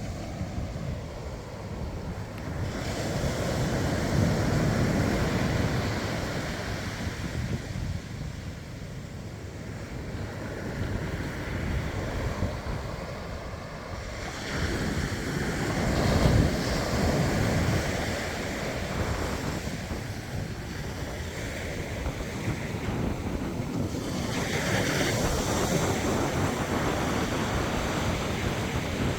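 Surf breaking on a sandy beach, the waves washing in and surging louder in slow swells, the biggest about halfway through. Wind buffets the microphone with a low rumble underneath.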